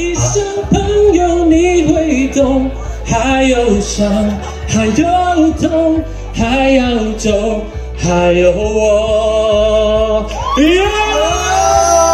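A song with a singing voice over a steady bass line, the voice moving in short phrases and then holding long notes near the end.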